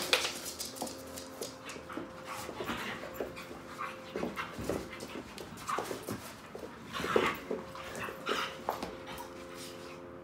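Two Weimaraners play-fighting, panting, with their paws and claws scrabbling and clicking on a tiled floor and rug.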